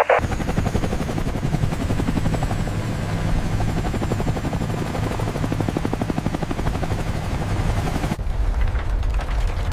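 Heavy twin-rotor helicopter hovering, its rotor blades chopping fast and steadily over a low engine rumble. About eight seconds in the higher hiss drops away and the low rumble carries on.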